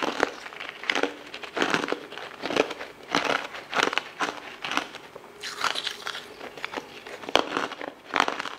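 Biting into and crunching frosted coloured ice balls close to the microphone: a steady run of sharp crunches and chewing, about one or two a second.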